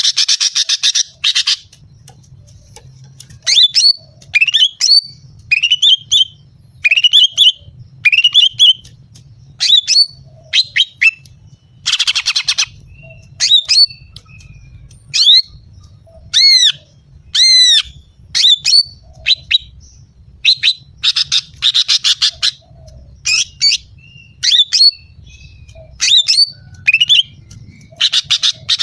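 Female greater green leafbird (cucak ijo) calling: a run of short, sharp whistled notes, most sweeping down in pitch, about one a second. They are broken by harsh rasping chatters near the start, around the middle and at the end.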